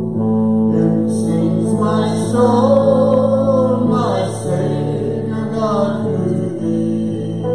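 Live church band playing a song: electric and acoustic guitars with a singing voice over steady held bass notes.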